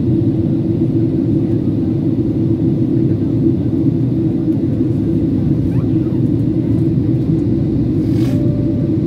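Steady cabin noise of a Boeing 737-800 in flight, its CFM56 turbofans and the airflow over the fuselage heard from a window seat as a constant low drone.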